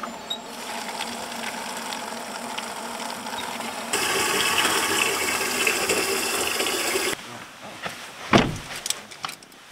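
Water running to refill the campervan's water supply. The rush gets stronger about four seconds in, then stops abruptly a few seconds later. A single thump follows near the end.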